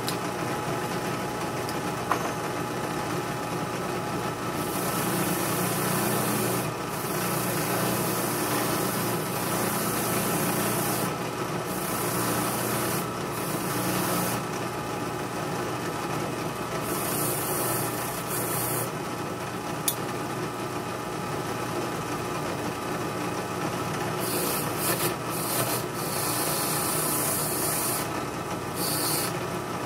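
Drill press motor running steadily with a hum. Several spells of rasping, each lasting a few seconds, come and go as the steel springs and spacers of a pocket knife are held against the spinning wheel to strip rust and grime.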